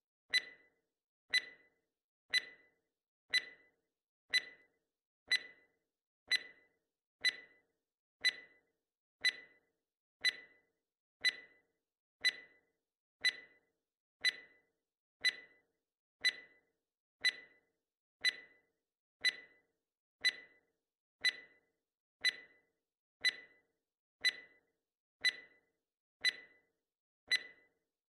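Countdown-timer sound effect: a sharp clock-like tick once a second, each dying away quickly, keeping a steady pace.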